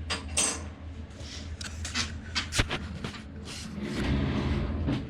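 Handling noises from the cardboard box the replacement battery came in: a run of short rustles and scrapes with a few sharp clicks, the sharpest about two and a half seconds in, then a longer rustling about four seconds in.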